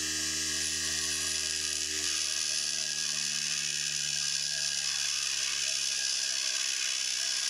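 A steel lathe cutting tool being ground against the diamond wheel of a homemade bench grinder: a steady grinding hiss over the motor's low hum, which fades over the first few seconds.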